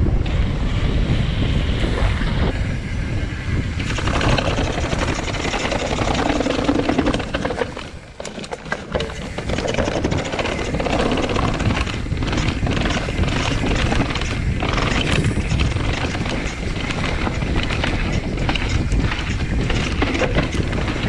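YT Capra mountain bike riding downhill, with wind buffeting the microphone and tyres rolling on pavement. From about nine seconds in, the bike rattles and knocks over stone steps and rough trail.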